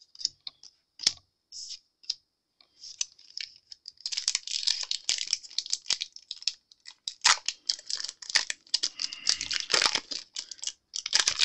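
Light taps and clicks, then, about four seconds in, a foil Pokémon booster-pack wrapper being crinkled and torn open, a dense crackling that runs on to the end.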